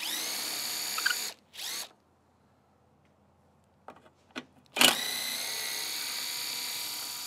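Power drill spinning a socket extension to back out the bolts holding the shroud on a Briggs & Stratton mower engine. The motor whine spins up and runs for about a second, gives a short burst, stops, then runs again steadily for about two and a half seconds from about five seconds in, with a few small clicks in the pause.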